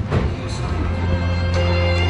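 Music with a deep, held bass note under higher melodic lines.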